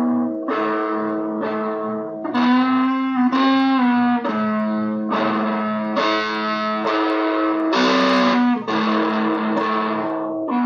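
Rock music led by an electric guitar playing a melody of held, separate notes. From about two seconds in, the sound grows fuller and brighter.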